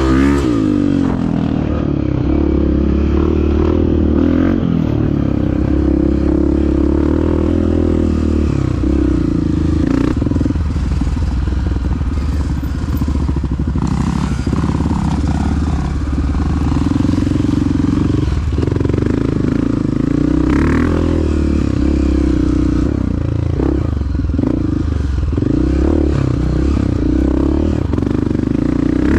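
Dirt bike engine running while being ridden, its pitch rising and falling with the throttle.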